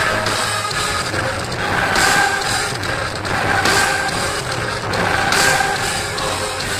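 Live drum solo on a rock drum kit, heard from the audience in a concert hall, with a crash cymbal struck about every second and a half and ringing over the drums.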